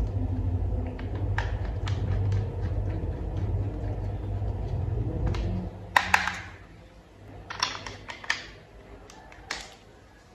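Plastic toy vehicle parts clicking and snapping as they are fitted together by hand: faint small clicks, then a handful of sharp clicks, the loudest about halfway through. A low steady hum underneath stops about halfway.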